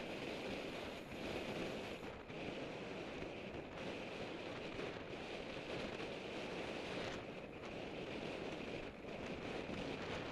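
Steady wind rushing over a Contour HD action camera's microphone as a road bicycle rides at about 25 mph in a race pack.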